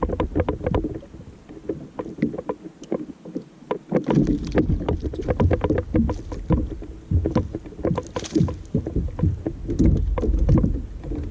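Water slapping and lapping against the hull of a small fishing boat in a run of irregular knocks, with a low wind rumble that comes up about a third of the way in.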